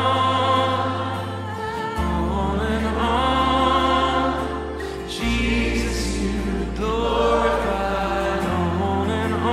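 Contemporary worship song: singing voices over steady bass and keyboard chords that change about every three seconds.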